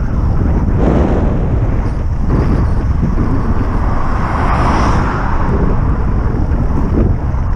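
Steady low rumble of wind buffeting the microphone of a bicycle-mounted camera while riding. An oncoming car passes about halfway through, its tyre and engine noise swelling to a peak and then fading.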